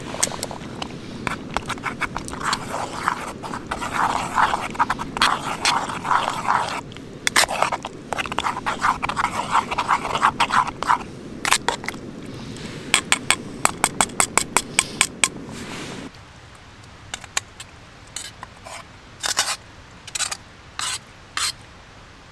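A metal spoon scrapes and stirs inside a metal camp pot over the steady low rush of a backpacking stove burner, with a run of quick rhythmic scrapes near the middle. About two-thirds of the way in the rush stops abruptly, and a few footsteps crunch through dry fallen leaves.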